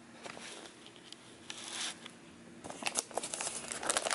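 Brown kraft-paper gift wrapping rustling and crinkling under hands, faint at first and growing louder with denser crackles from about three seconds in.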